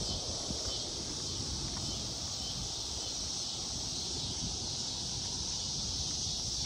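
Steady high-pitched chorus of evening insects in woodland, with an irregular low rumble underneath.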